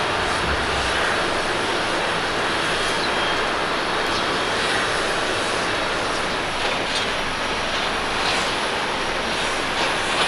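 Airbus A350-900's Rolls-Royce Trent XWB jet engines running steadily as the airliner rolls along a wet runway, an even noise mixed with the hiss of spray and rain.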